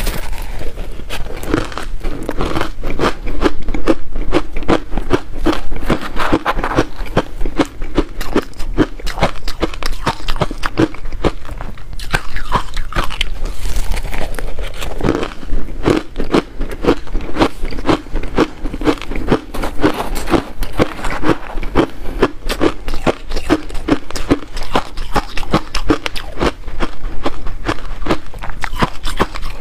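Mouth crunching and chewing frozen crushed ice coated in matcha powder, picked up close by a lapel microphone: a steady run of crisp crunches, several a second, all the way through.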